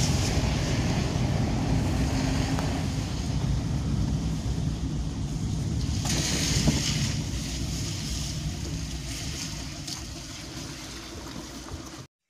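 Steady rumble and hiss inside a moving car on a wet road: engine and tyre noise with wind and rain, easing off slightly in the second half and cutting off abruptly near the end.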